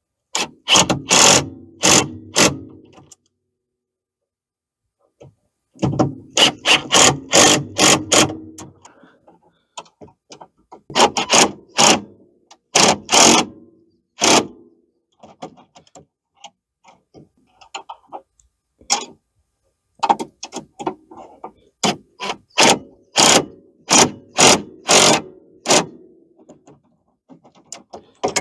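Bolts on a metal A-arm guard being tightened with hand tools: several bursts of sharp metallic clicking, a few clicks a second, with short pauses between them.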